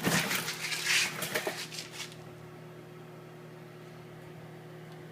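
Microwave oven running with a steady low hum, a CD inside it. During the first two seconds there are loud irregular crackling bursts, the disc's metal layer arcing; after that only the hum is left.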